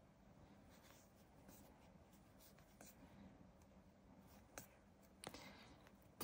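Very faint rustling and scraping of yarn drawn over a crochet hook as a double crochet stitch is worked, with soft ticks and a couple of slightly louder ones near the end.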